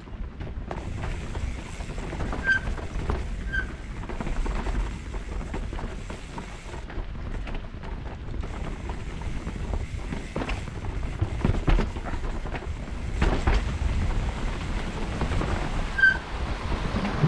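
Mountain bike riding down a dirt and root forest trail: tyre and trail noise with the bike rattling and knocking over bumps, and wind on the microphone. Three brief high squeaks, about two and a half seconds in, a second later, and near the end.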